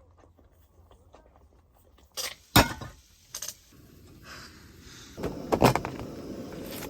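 Objects being handled: a few sharp knocks and clatters, the loudest about two and a half seconds in, another cluster near the middle, then a steady rushing noise takes over.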